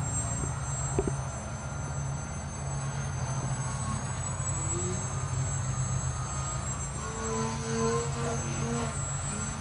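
Electric RC foam delta-wing plane's brushless motor and propeller buzzing as it flies fast overhead, the pitch coming and going as it passes. A single click about a second in.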